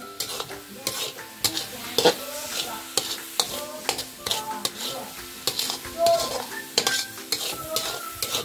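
Metal spoon stirring and scraping a thick masala paste in a metal kadai, knocking against the pan again and again over the sizzle of frying.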